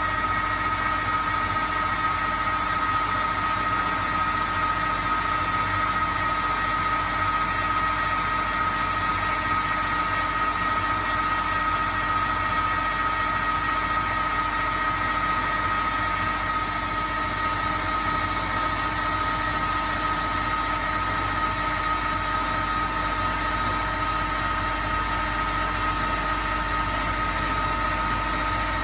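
ProtoTrak CNC lathe spindle running at about 950 RPM while an indexable insert takes a finish cut along a propeller shaft. It is a steady machine whine made of several fixed tones over an even hiss of cutting, without a break.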